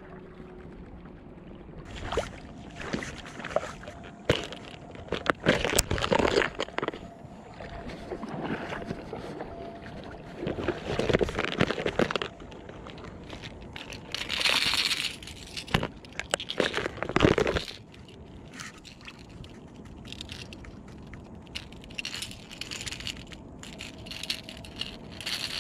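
Fishing tackle being handled while the lure is changed: irregular rustles, knocks and sharp clicks, busiest in the first two thirds, then lighter clicking near the end.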